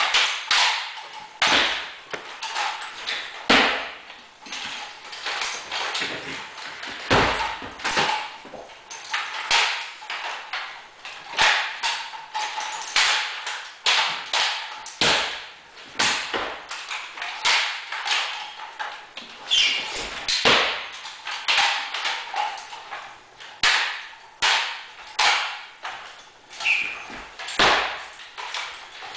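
Drill rifles with wooden stocks being handled through rifle-drill movements: a string of sharp knocks and slaps from hands striking the rifles and rifle butts meeting the floor, about one or two a second.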